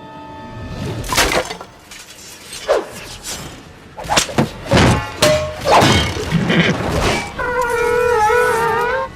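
A run of cartoon crash and smash sound effects, with several separate impacts and breaking sounds. Near the end comes a wavering high-pitched cartoon sound held for about two seconds.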